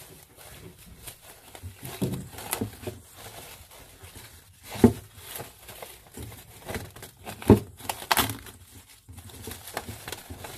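Plastic cling film crinkling and rustling as it is pulled off and stretched over a stainless steel mixing bowl, with a few sharp knocks about halfway through and again near the end.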